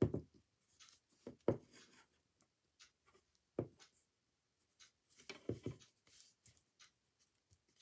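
Pencil scratching on paper in short strokes, with several dull knocks of objects being handled on the table, the loudest right at the start, about a second and a half in, and a close pair about five and a half seconds in.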